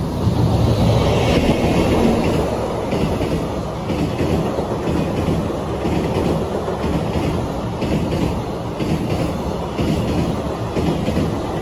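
Freight train passing over a steel girder bridge: a loud, steady rumble with rhythmic clatter of the wagon wheels over the rail joints. The noise swells as the train arrives, then holds.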